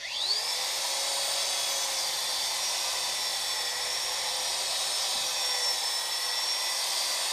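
Variable-speed electric polisher with a hard felt pad, switched on at a low setting of about 600 RPM. It spins up with a quick rising whine, then runs steadily as it polishes a scratch out of porcelain with white polish.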